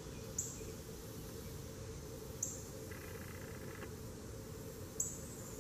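Insects chirping outdoors: short high chirps repeat about every two seconds over a steady background, with a buzzy call lasting about a second near the middle.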